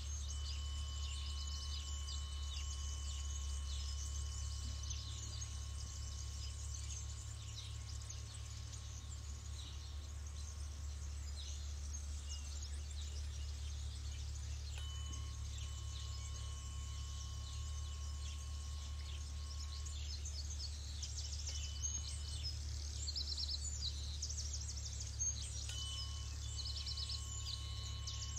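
A tuning fork ringing with a steady high tone. It fades out about 11 s in and is struck again about 15 s in, briefly around 21 s, and about 26 s in. Birds chirp through it, more in the second half, over a steady low rumble.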